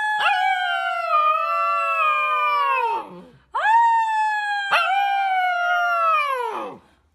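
Husky puppy howling: two long howls, each held and then falling in pitch as it dies away, with a short break between them. A brief crack in the voice comes early in each howl.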